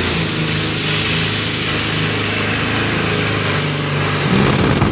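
Modified pulling tractor's engine running hard at high, steady revs, with a strong hiss over the engine note. A little past four seconds in the sound turns rougher and slightly louder.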